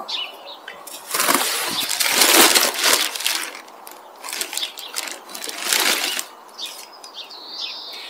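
Plastic bag and cardboard box rustling and crinkling as hands rummage in them and lift out a clump of bare-root strawberry plants, in two spells of rustling. A bird chirps near the end.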